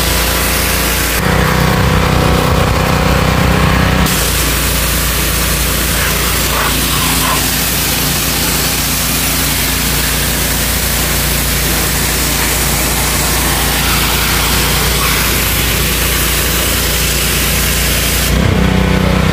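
A-iPower APW 3500 PRO petrol pressure washer running, its 223 cc engine running steadily while the wide-spray nozzle hisses water at high pressure against a motorbike. The spray hiss drops out for about three seconds a second in, and again near the end, while the engine keeps running.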